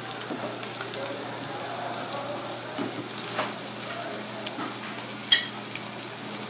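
Flour-dusted sea robin fillets sizzling and crackling in hot oil in a pan, with a single sharp metallic clink about five seconds in.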